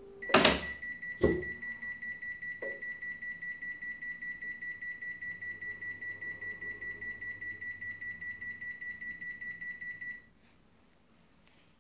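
Panasonic NA-168VG2 washing machine halting with two loud clicks, then its error alarm beeping rapidly, about five high beeps a second for ten seconds before cutting off. It is signalling error H43: the anti-flood device in the base has tripped, a sign of water leaking into the bottom of the machine.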